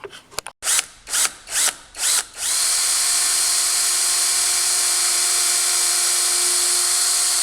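Power drill pulsed in four short bursts, then run steadily for about five seconds, pre-drilling a pilot hole for a nail in a small wooden board.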